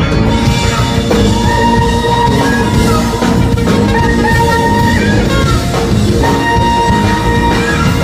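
Live rock band playing an instrumental passage: drums, bass and guitar, with a lead instrument holding long notes.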